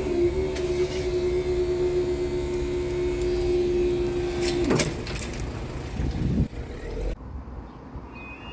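Level crossing barrier rising: its drive motor gives a steady hum that winds down and stops about five seconds in, with a clunk or two as the boom reaches upright. Near the end, after a cut, a two-tone electronic warning alarm begins as the crossing's amber lights come on, the start of the closure sequence.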